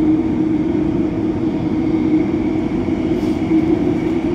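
Downtown Line metro train running underground at speed: a steady rumble of wheels on rail with a constant low hum.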